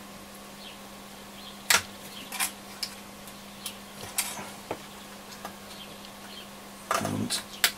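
A few scattered small clicks and taps of a hand tool against the metal chassis and circuit board of a Roberts R600 transistor radio as the new module's mounting tabs are bent over. A steady low hum runs underneath.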